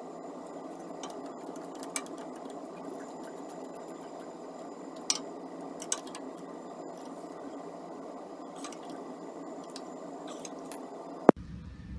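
Light metallic clicks of a carburetor and its mounting nuts being handled and fitted onto the engine's studs, a few sharper ones about two, five and six seconds in, over a steady hiss. The hiss cuts off abruptly with a sharp click near the end.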